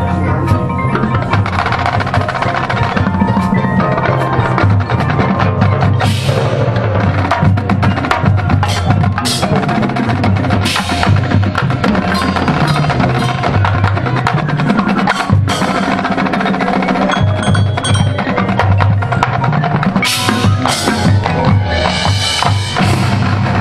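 Marching band playing, with the front-ensemble mallet percussion (chimes, glockenspiel) and drum rolls prominent over sustained band chords and repeated sharp percussion strikes.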